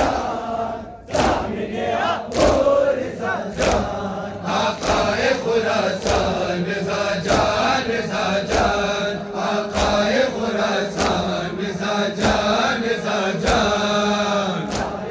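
Matam (chest-beating mourning): a crowd of men chanting a noha while striking their chests with their hands in time, a sharp slap about every 0.6 seconds under the chanting.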